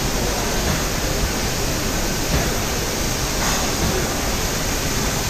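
Steady rushing hiss of a gelcoat spray gun laying hull colour into a boat hull mold, mixed with the airflow of the spray booth.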